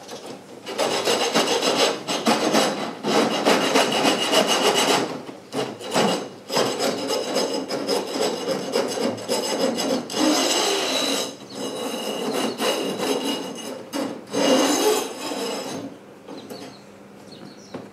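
Hand file rasping along the cut wire ends of welded wire mesh, smoothing off burrs, in repeated strokes with short pauses, the mesh wires ringing faintly. The filing stops about two seconds before the end.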